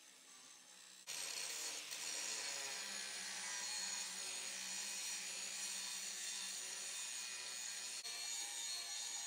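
Grinding wheel grinding ladder grooves into a layered steel Damascus billet: a steady rasping grind that starts abruptly about a second in and holds.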